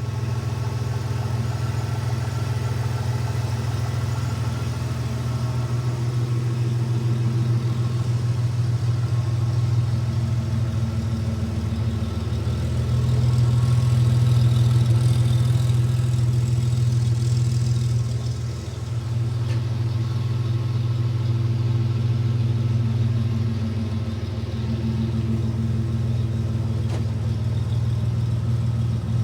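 Third-generation Toyota 4Runner engine idling with an exhaust leak, running steadily and swelling a little in level about halfway through.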